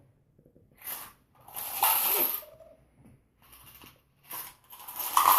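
A writing tool scratching on paper in several separate strokes. The strokes come about a second in, around two seconds in, faintly near three and a half seconds, and longest and loudest from about five seconds in: circling or colouring an answer on a worksheet.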